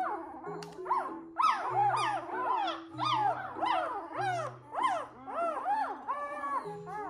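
Newborn wolfdog puppy (Noble Shepherd, a grey wolf × German Shepherd hybrid) crying in a quick run of short high squeals, each rising and falling, about two or three a second, with one longer cry near the end. Soft background music plays underneath.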